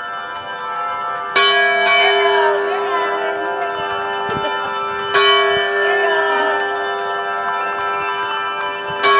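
Church bell ringing: three strokes about four seconds apart, each one ringing on into the next.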